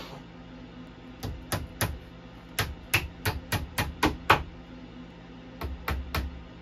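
Hammer driving small nails into the thin back panel of a flat-pack cabinet: sharp taps in three quick runs, about three a second, three blows, then about seven, then three more near the end.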